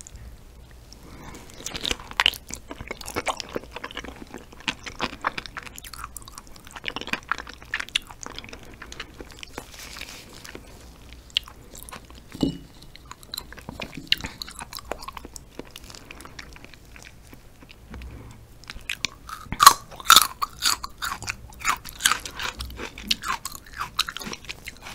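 Close-miked chewing and biting of raw yellow stingray liver: a steady string of short smacking mouth clicks, loudest and busiest a little before the end.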